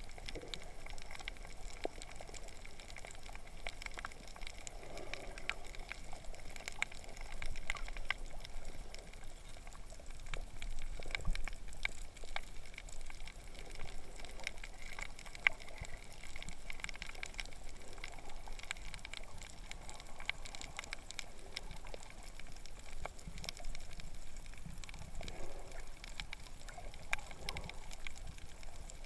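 Water moving around a GoPro sealed in its waterproof housing and held underwater: a muffled, steady wash of water with many scattered sharp clicks and crackles.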